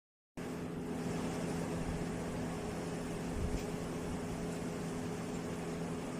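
A 2000 W laser cleaning machine running: a steady hum under an even hiss, cutting in after a short moment of silence at the start.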